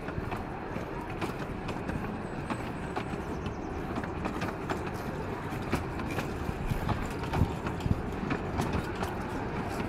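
Carriages of a 12-inch-gauge miniature railway train rolling slowly past, their wheels clicking irregularly over the rail joints.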